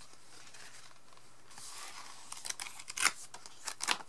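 Cardboard album packaging being handled and opened: a light rustle and slide of the slipcover and hardcover, then a few sharp clicks and taps near the end, the loudest about three seconds in.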